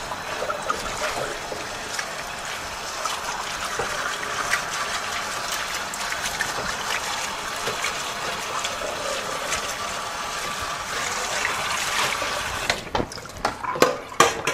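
Water running steadily from a garden hose into a mesh bag of soaked sunflower seeds in a stainless steel sink, rinsing the seeds before planting. The flow cuts off about 13 seconds in, followed by a few sharp knocks and clatters.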